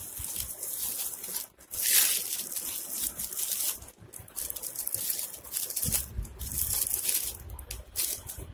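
Crinkly cellophane and foil wrapper being unwrapped by hand, crackling and rustling in repeated bursts, loudest about two seconds in.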